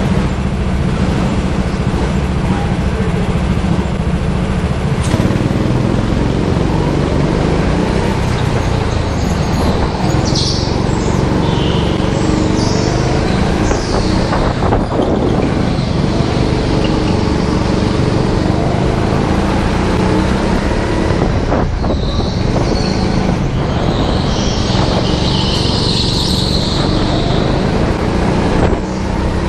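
Go-kart engine running loud and steady at speed. A few high-pitched tyre squeals come through the corners, the longest near the end.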